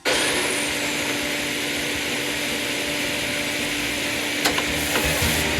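Hoffmann MS 35 SF double miter saw and routing machine running, a steady whirring hiss over a steady hum that starts abruptly, with a couple of sharp clicks near the end.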